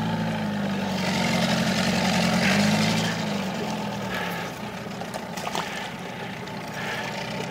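Outboard motor of a small fishing boat idling, a steady low hum that fades away about four seconds in, over a steady hiss. A few sharp clicks and knocks come near the middle.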